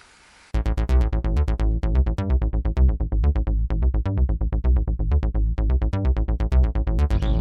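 Electronic background music with a steady bass beat and fast pulsing synth notes, starting suddenly about half a second in.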